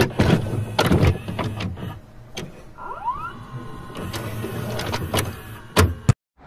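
Videocassette recorder mechanism sounds: a series of clicks and clunks from the tape transport. About three seconds in a motor whine rises in pitch, and there is a loud clunk near the end.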